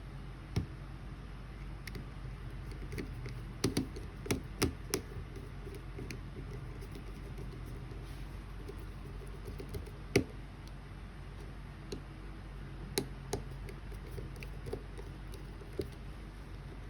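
Scattered light clicks and taps from handling a Canon IXUS 70 compact camera during its repair, a cluster of them about four seconds in and the loudest one about ten seconds in, over a steady low hum.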